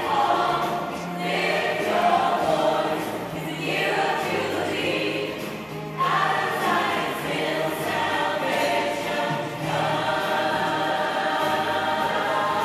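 Gospel choir music: many voices singing together.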